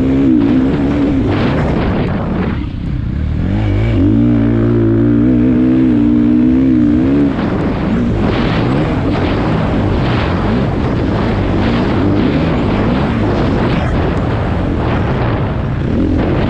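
Dirt bike engine running hard, its revs rising and falling, with a held stretch in the middle before the pitch drops.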